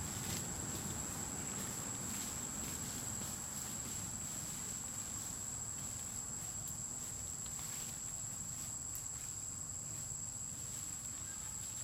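Steady high-pitched insect drone, a single unbroken tone of the cricket or cicada kind, with a few faint clicks over it.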